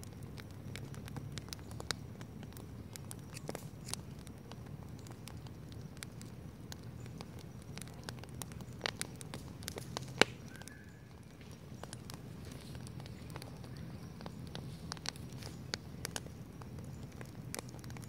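Wood campfire burning and crackling, with irregular sharp pops over a low steady rumble; the loudest pop comes about ten seconds in.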